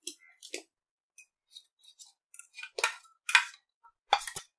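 Metal spoon scraping and clinking against the inside of a stainless-steel mixer-grinder jar as ground sweet corn paste is scraped out. It comes as a string of short scrapes and taps, the loudest in the second half.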